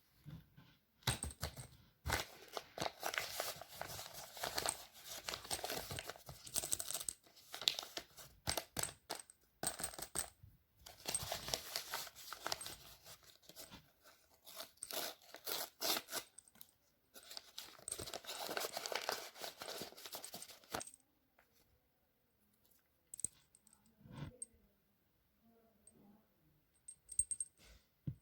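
Plastic blind-bag packaging crinkling and tearing as it is opened and handled, in several long spells. Near the end this gives way to a few faint small clicks and taps.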